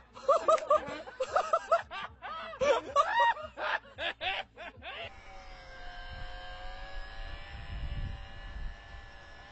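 People laughing in short giggling bursts for about five seconds. Then a steady hum with several held pitches takes over, with a low rumble beneath it.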